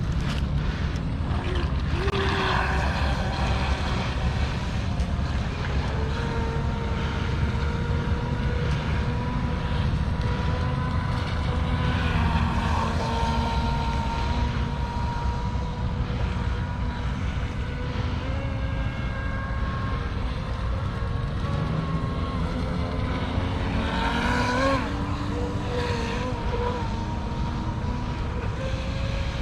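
RC speedboat's Tenshock brushless electric motor and propeller whining steadily as the boat runs, with brief rises in pitch about two seconds in and again near the end, over a heavy rumble of wind on the microphone.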